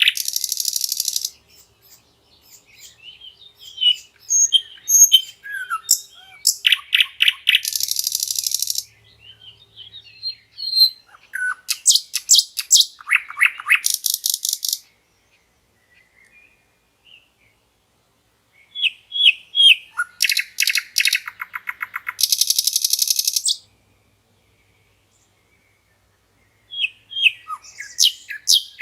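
Common nightingale singing: separate phrases of fast repeated notes that run into high, buzzy rattling trills, with pauses of a few seconds between phrases.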